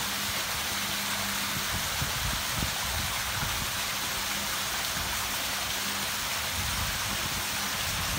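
Water from a rockery waterfall cascading into a garden pond: a steady splashing rush with no change.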